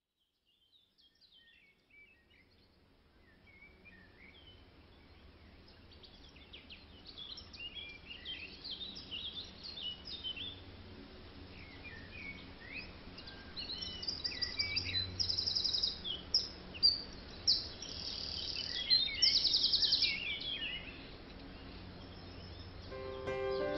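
Several birds singing and chirping, fading in from silence and growing louder, with rapid high trills in the second half, over a low steady outdoor hum. Piano music begins near the end.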